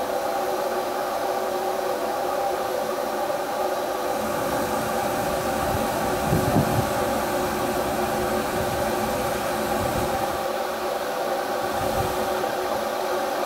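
Steam locomotive at a station platform: a steady hiss of steam with a hum under it, and a few low thumps, the loudest about halfway through.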